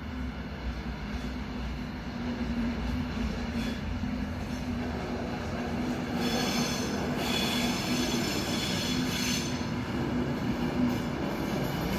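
hvle diesel locomotive approaching and passing, its engine running with a steady low rumble that slowly grows louder. About six seconds in, a high-pitched metallic squeal from the running gear comes in for about three seconds.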